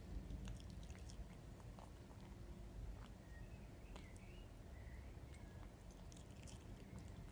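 Feral tom cat chewing food, with faint scattered crunching clicks over a low steady background rumble. A faint warbling chirp-like call sounds between about three and five seconds in.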